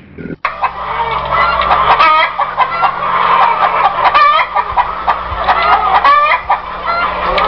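Domestic hens clucking: a dense run of short calls in quick succession, beginning abruptly about half a second in.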